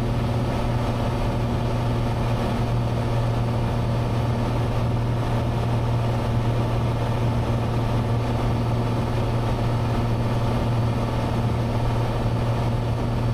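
Cessna 182's engine and propeller droning steadily in flight, heard inside the cabin, with a constant low hum and no change in pitch or level.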